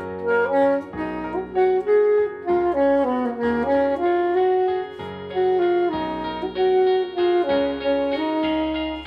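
Soprano saxophone playing a flowing melody, moving note to note with short slides, over a sustained backing accompaniment of low chords and bass.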